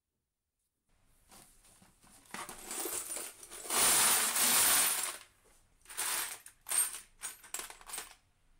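Assorted metal screws, bolts and small fittings clattering as they are tipped out of a jar onto a plastic tray. A dense rush of rattling comes about four seconds in, then shorter clinking rattles as a hand stirs through the pile.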